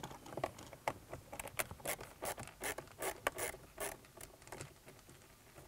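Screwdriver backing out Phillips screws from the plastic gear selector trim: a run of quick, irregular scratchy clicks and scrapes that stops about four and a half seconds in.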